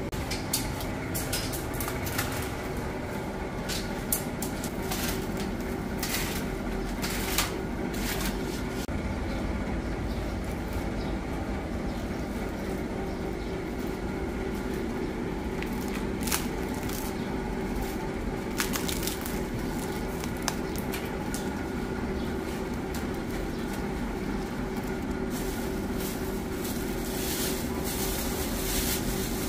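Working noise in a traditional sangak bakery: a steady low mechanical hum with one constant tone, with sharp clicks and knocks scattered through it.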